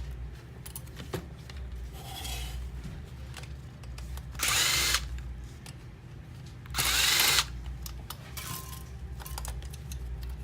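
Power screwdriver backing screws out of a car navigation unit's housing in short runs of about half a second: a faint one about two seconds in, then two louder ones near the middle.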